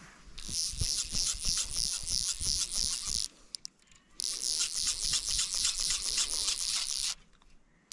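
Fly reel's click-pawl ratchet buzzing in two runs of about three seconds each, with a short pause between, pulsing several times a second as the spool turns under a carp fighting on the line.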